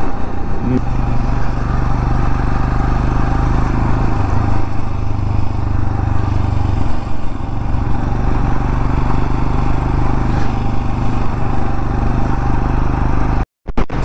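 Motorcycle engine running steadily while riding at road speed, with a steady low drone under road and wind noise. The sound drops out for a split second near the end.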